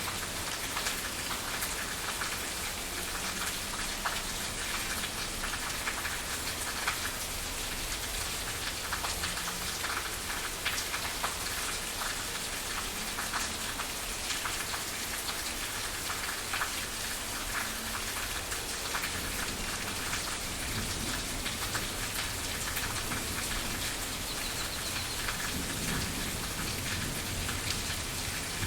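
Steady rain falling on a surface: a dense, even hiss of countless small drop taps. A low rumble of thunder comes in near the end.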